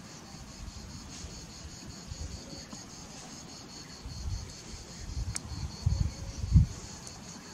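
Steady, finely pulsing chorus of insects such as crickets trilling. Over it come irregular low rumbles of wind buffeting the microphone, mostly in the second half, with the strongest gust a little after six seconds in.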